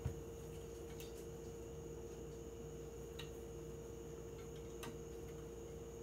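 Quiet room tone: a steady hum with a few faint clicks, about a second, three seconds and five seconds in.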